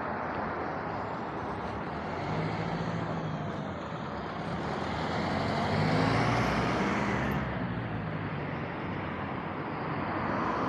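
Road traffic noise with a box truck's engine passing close by, growing louder to a peak about six seconds in and then fading, over the steady hiss of tyres on the road.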